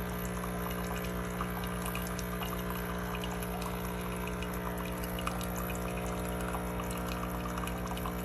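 Cuisinart SS-4N1 coffee maker running, its motor giving a loud, steady buzzing hum like a jackhammer over the sound of water pouring. The owner takes the noise to mean something is wrong with a terrible motor.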